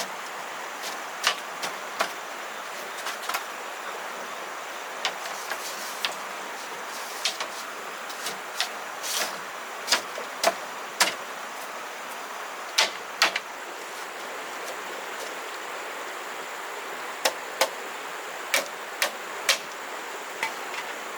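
Irregular sharp knocks and taps, some single and some in quick pairs, over a steady hiss.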